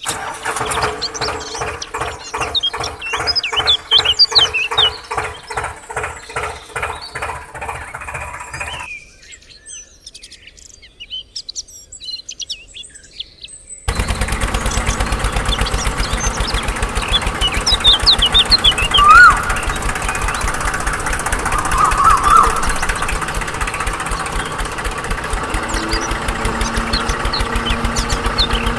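Diesel tractor engine chugging in an even beat, with birds chirping. The engine drops out about nine seconds in and cuts back in abruptly about five seconds later, running steadily after that.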